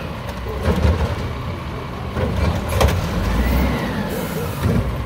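WhiteGMC Amrep Octo automated side-loader garbage truck working its arm to dump a recycling cart: the diesel engine runs up under hydraulic load with a whine that rises and falls. Sharp knocks of the lifted cart against the arm and hopper, one about a second in and a louder one near three seconds.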